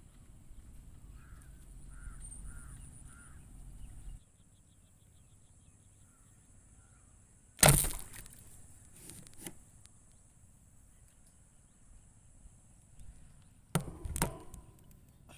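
A thettali, a rubber-band-powered fish-shooting crossbow, fired about seven and a half seconds in: one loud sharp crack as the bands release the rod into the water, followed by a few softer knocks. A bird calls four times a second or so in, and a second burst of sharp knocks comes near the end.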